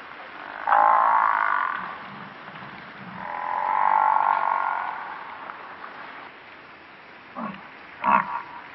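African buffalo (Cape buffalo) in a herd calling: a call of about a second, then a longer one that swells and fades, and two short calls near the end.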